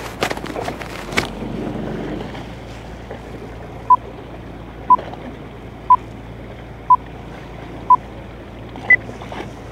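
Countdown timer beeps: five short beeps of the same pitch a second apart, then one higher final beep, over steady wind and sea noise on the boat.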